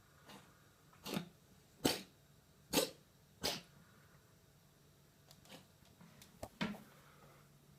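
Abyssinian cat coughing: four short, sharp coughs less than a second apart, then a few weaker ones near the end. It is a lingering cough that courses of antibiotics have not cleared.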